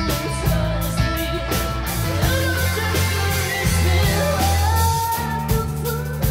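Live indie rock band playing: a woman singing into a microphone over bass guitar, viola and drums.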